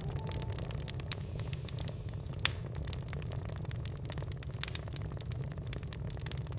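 Log fire in a fireplace crackling: frequent small snaps over a steady low rumble, with one loud pop about two and a half seconds in.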